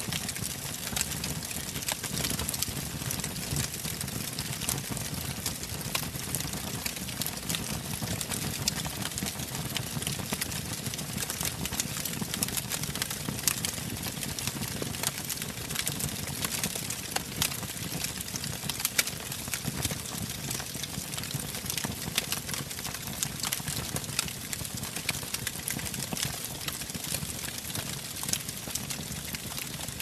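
Wood fire burning in a brick fireplace: frequent sharp crackles and pops, irregular and unbroken, over a steady low rush of the flames.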